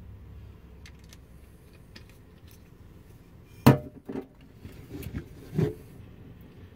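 Knocks from kitchen items being handled: a sharp knock with a brief ring a little past halfway, then a few lighter clunks as a capped vinegar bottle is put away and a glass iced-tea pitcher is picked up and uncapped.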